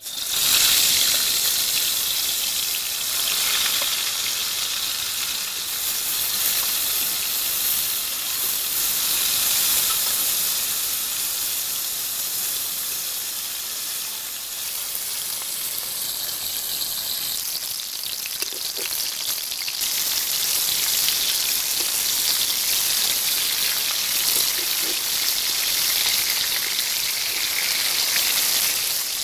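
Whole koi fish (climbing perch) frying in hot oil in a karahi: a loud, steady sizzle that starts abruptly as the first fish goes into the oil.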